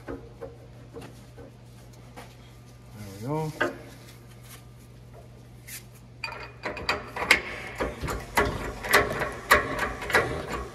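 Hydraulic shop press being pumped by hand to press a new bushing into a control arm: a quick run of metallic clacks, about three a second, starting about six seconds in.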